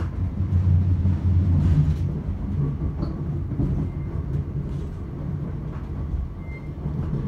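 Interior running noise of a Class 321 electric train carriage on the move: a steady low rumble from the wheels and running gear on the rails, with a few faint clicks from the track. It is loudest in the first two seconds, then eases slightly.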